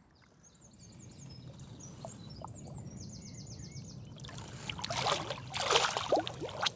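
Small birds singing for the first few seconds, then water splashing loudly from about four seconds in as a big mirror carp is let go from the hands at the water's edge and kicks away.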